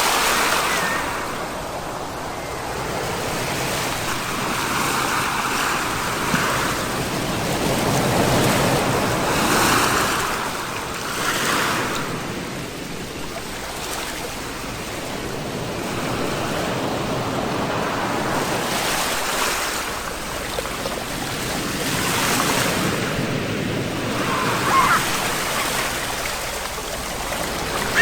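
Sea waves breaking and washing up the shore, the surf swelling and ebbing every few seconds. Near the end there is a brief, short high call.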